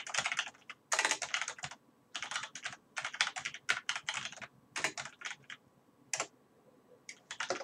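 Computer keyboard typing: quick runs of keystrokes broken by short pauses, sparser in the second half.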